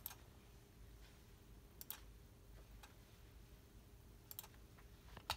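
A few faint, sharp computer mouse clicks, spaced a second or more apart, over near silence.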